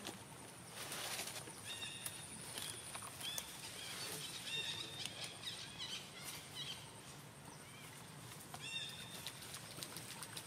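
Baby macaque giving short, high-pitched calls in small runs every second or two, with quieter gaps between them.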